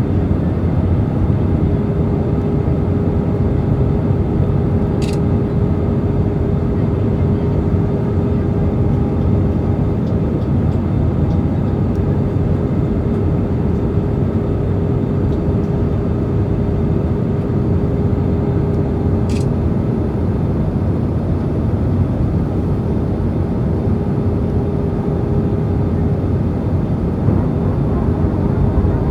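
Airbus A320 cabin noise on approach, heard from inside the cabin: steady airflow and engine rumble from the two IAE V2527E-A5 turbofans, with a constant hum running through it. Two faint short high ticks about fourteen seconds apart.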